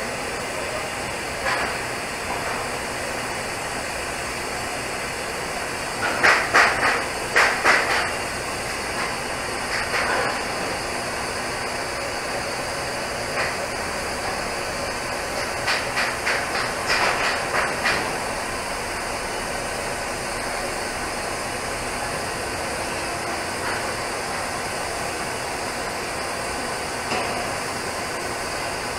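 TIG welding arc hissing steadily while the cap pass is laid on a steel pipe joint. Two clusters of short, sharp knocks, about a quarter of the way in and again just past halfway, with a few single ones between.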